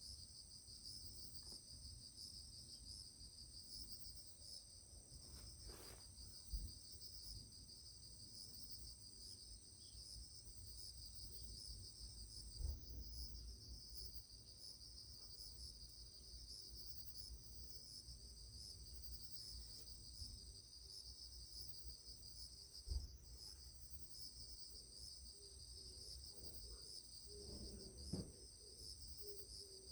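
Faint, steady chorus of trilling insects, high-pitched and pulsing rapidly, with a few soft knocks now and then.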